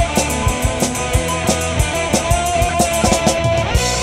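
Rock music with a steady drum-kit beat and guitar.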